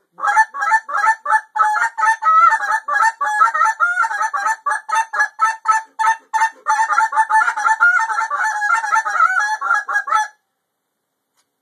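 Hand-blown goose call worked in a fast run of honks and clucks, about three to four notes a second, each note breaking from a low to a high tone, stopping abruptly about ten seconds in.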